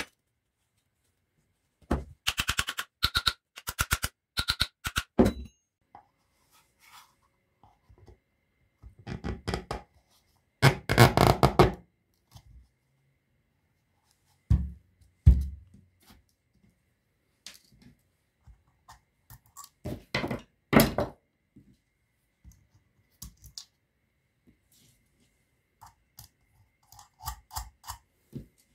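Clicks, knocks and thunks of metal and plastic parts being handled and fitted together as a small water-pump motor is reassembled, in separate short bursts. There is a quick run of ringing metal clicks a couple of seconds in, and dull thunks around the middle.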